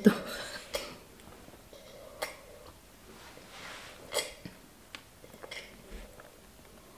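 A mostly quiet room with a few faint, scattered clicks and small knocks, the loudest about four seconds in.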